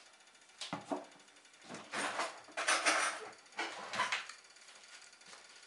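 Kitchen handling noise: a few short clatters and rustles, about one a second, as containers and utensils are put down and picked up, quieter near the end.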